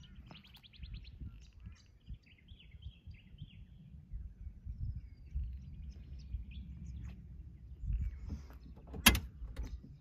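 Small birds chirping and trilling in bursts over a low, uneven rumble, with one sharp click about nine seconds in.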